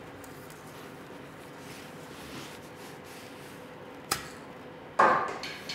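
Bowstring of a small maple kids' bow released with a single sharp snap about four seconds in as an arrow is shot. About a second later a louder knock follows and fades over half a second.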